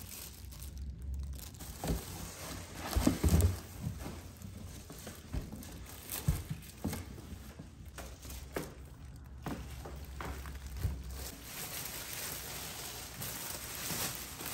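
Plastic wrap crinkling and rustling around a boxed Cosori air fryer oven as it is unpacked, with scattered knocks and thumps of the appliance and box being handled, the loudest about three seconds in.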